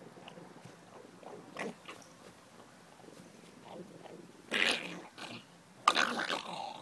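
Pug growling in short, sudden, noisy bursts while guarding its bone, the two loudest about four and a half and six seconds in.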